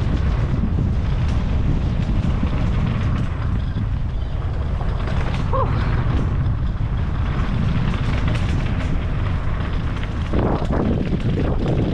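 Steady, loud low rumble of a vehicle in motion with wind buffeting the microphone, and a brief squeak about halfway through.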